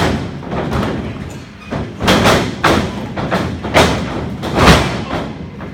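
Wrestlers' bodies hitting each other and the ring canvas: a string of about six sharp thuds and smacks, the heaviest and deepest one near the end as one wrestler is lifted and brought down.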